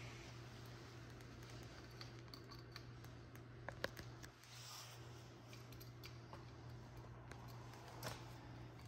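Faint clicks and light metal taps from a shock absorber and small tool being handled, over a steady low hum; two sharp clicks just under four seconds in and another near the end.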